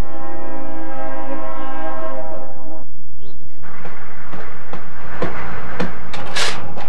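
Train horn sounding one steady chord of several notes for nearly three seconds, then cutting off abruptly. After it come a rustling, hissing noise and a few knocks.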